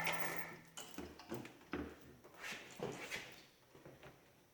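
A louder scraping noise fades out at the start, followed by a scatter of faint knocks and clunks as heavy metal parts are shifted and lined up under an engine block.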